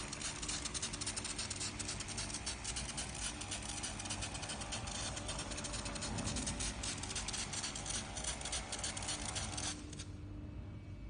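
Automatic sensor spray dispenser spraying a continuous fine mist: a steady, crackly hiss that cuts off suddenly about ten seconds in.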